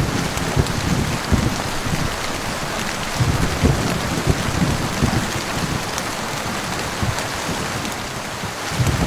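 Heavy rain falling steadily, with low rumbles of thunder swelling and fading underneath.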